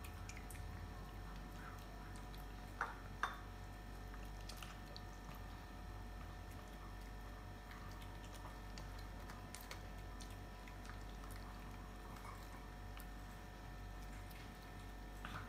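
Two small dogs, one a shih tzu, eating meatballs from plates: faint chewing with scattered small clicks, and two sharper clicks about three seconds in, over a steady faint hum.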